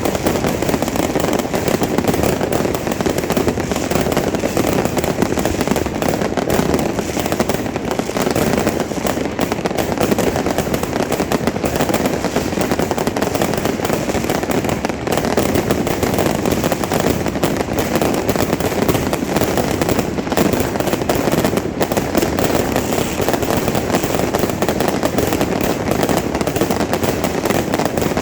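Fireworks and firecrackers going off nonstop, a dense crackling barrage of rapid pops with no pause.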